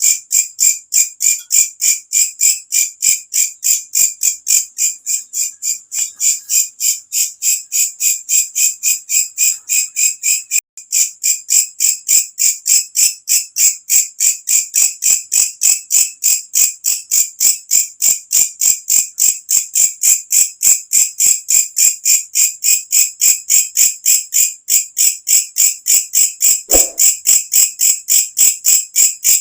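Walang kecek, a singing insect, calling loud and shrill in a steady, even train of pulses, about four to five a second, with a brief break about ten seconds in.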